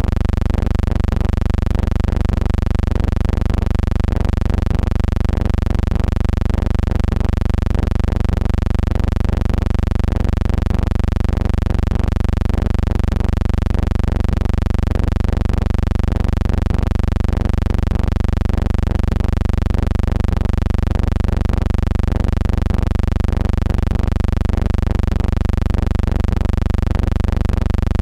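Steady low electrical hum with a buzz of many overtones, unchanging throughout.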